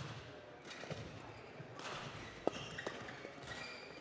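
Badminton rally: rackets hitting the shuttlecock and court shoes squeaking on the floor, with several sharp short sounds, the loudest about two and a half seconds in.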